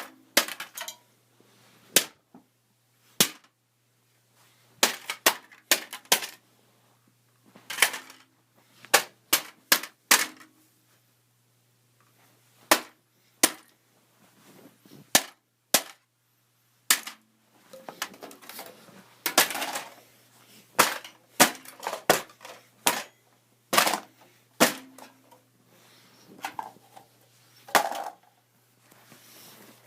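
An irregular series of sharp bangs and knocks as the PC's CD drive is hit over and over, some blows coming in quick clusters, with a denser stretch of clatter about two thirds of the way through.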